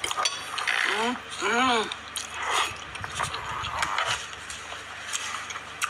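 Someone eating spaghetti, chewing and slurping with indistinct mouth-full murmurs. About a second and a half in there are two short whines that rise and fall in pitch.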